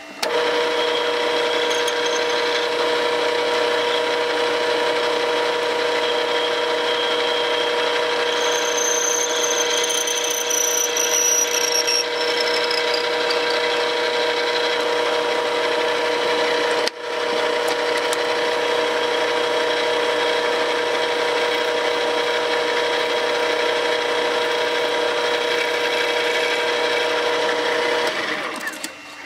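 Small metal lathe running steadily with a gear and motor whine while a rod is turned, with a high whine that falls in pitch between about 8 and 12 seconds in. The sound cuts out for an instant around the middle and dies away near the end.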